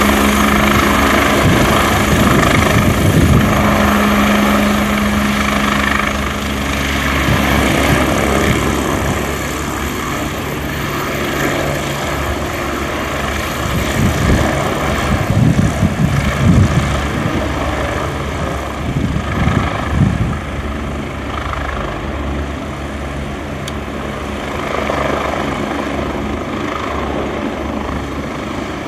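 Agusta A109E Power twin-turbine helicopter hovering and air-taxiing low: steady rotor beat over a high turbine whine, with a few low rumbling swells midway and the level easing slightly toward the end.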